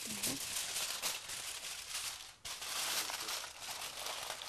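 Aluminium foil crinkling and crumpling as it is pulled over a baking tray and pressed down around its edges, a continuous crackle with a brief pause about two and a half seconds in.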